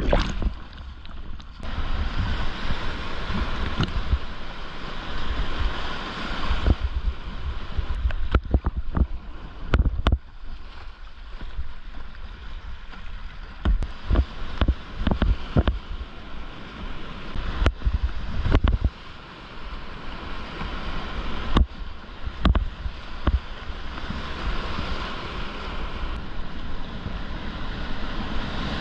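Whitewater rapids rushing around a kayak, swelling and easing, with irregular low thumps and knocks from wind and handling on the action camera's microphone.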